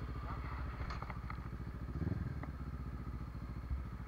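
Off-road engine idling with a steady low pulse, blipped once briefly about two seconds in. A few light clicks come about a second in.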